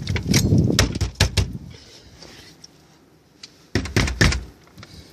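A door being opened and handled, with a run of clicks and knocks over a low rumble, then a few more knocks about four seconds in.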